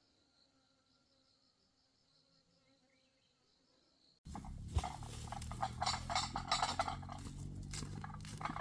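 Faint insect chirping, a rhythmic high pulsing, in quiet rural surroundings. About halfway through it cuts abruptly to a much louder stretch of dense, irregular clattering and rustling over a low hum.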